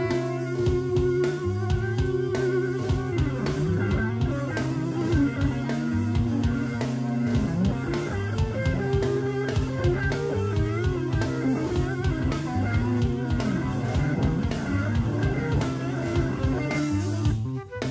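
Acid jazz band track: drum kit keeping a steady beat under a bass line and a guitar part.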